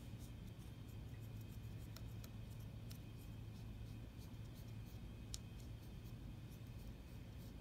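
Wooden pencil tip scoring deep lines into soft craft foam: faint, irregular scratches and small clicks, with a steady low hum underneath.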